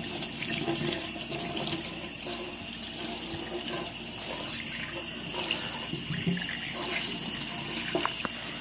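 Water running steadily from a tap into a sink as paint is washed out of a paintbrush.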